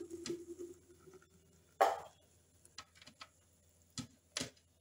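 Thick smoothie pouring from a blender jar into a glass jug: a faint, quiet flow, with one brief louder sound about two seconds in and a couple of small clicks near the end.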